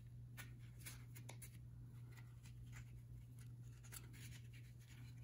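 Near silence: a low steady hum with faint, scattered small ticks and rustles from a pipe cleaner and cardboard tubes being handled.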